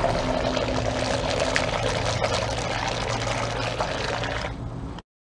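Small radio-controlled model boat running across the water, its propeller churning and splashing with a low steady hum underneath. The sound cuts off suddenly near the end.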